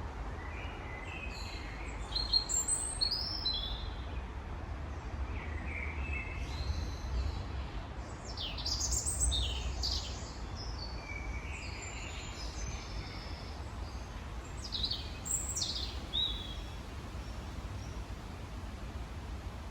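Wild birds chirping and calling in short phrases, some of them quick downward-sweeping notes, over a steady low background rumble.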